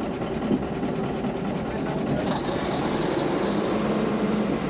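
Diesel engine of a BEML WRB-1 railbus running under way, with steady engine and running noise heard from inside the driver's cab. A faint high whine rises in pitch through the second half.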